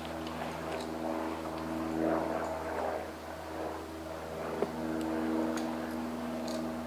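An engine running at a steady speed, a low humming drone that varies a little in strength, with a single sharp click about four and a half seconds in.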